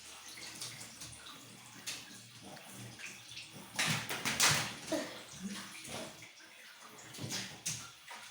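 Water splashing and running while a dog is bathed, with the loudest splashes about four seconds in.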